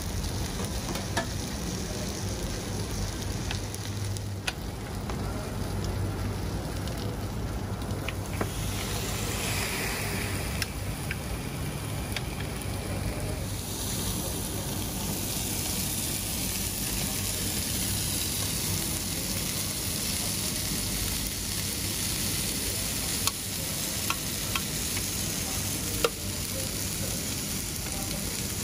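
King prawns sizzling on an electric contact grill: a steady frying hiss with scattered small pops, the hiss growing stronger about halfway through.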